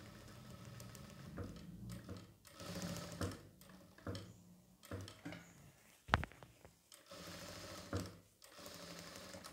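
Jack F4 direct-drive industrial lockstitch sewing machine stitching in short slow runs, stopping and starting again as the needle is brought down at each marked point on the cloth. A sharp click about six seconds in is the loudest sound.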